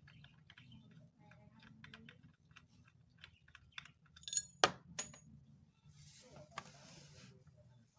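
Small metallic clicks and scrapes as the chrome stop-motion knob is unscrewed from the handwheel hub of an old black cast-iron sewing machine, with two sharp ringing metal clinks about four and a half and five seconds in. A short rustle follows near the end, over a low steady hum.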